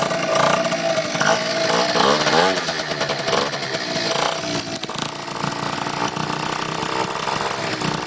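Two-stroke scooter engine with a Malossi 70cc cast-iron cylinder kit and a Stage6 Pro Replica expansion pipe. It is revved in quick throttle blips over the first few seconds, then settles to a steadier run.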